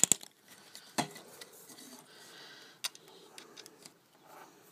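A few sharp clicks and taps from handling a multimeter test-lead clip as it is fitted onto the pins at the end of a fluorescent tube, with faint rustling between.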